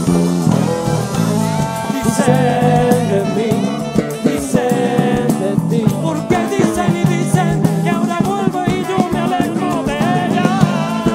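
A live band playing, with electric guitars, bass guitar and drum kit, and a man singing into a microphone.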